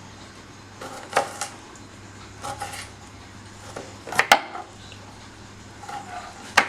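Kitchen knife cutting an amla (Indian gooseberry) into small pieces on a cutting board: irregular short knocks of the blade striking the board, loudest about four seconds in.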